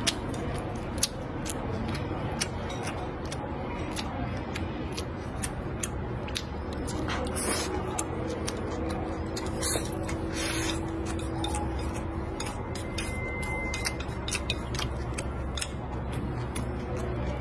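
Close-up eating sounds: chewing with many small sharp clicks, and chopsticks against the bowl. Two short breathy rushes come about halfway through.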